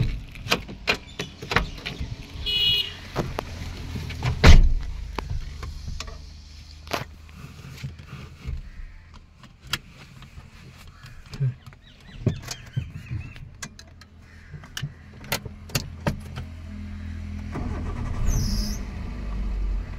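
Car doors shutting with loud thuds, one right at the start and another about four seconds in, followed by assorted clicks and knocks inside the car. Near the end the engine starts and runs steadily.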